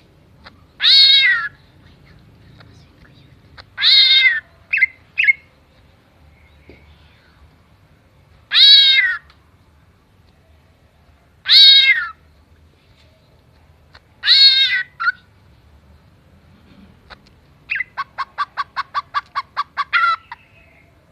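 Green leafbird (cucak ijo) mimicking a cat: five loud, drawn-out meow-like calls a few seconds apart, some followed by a short chirp or two, then near the end a rapid run of about a dozen short notes, roughly five a second.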